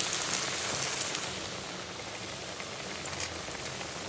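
A battered bread slice (bread chop) deep-frying in hot oil in a kadhai: a steady, even sizzle that eases slightly as it goes.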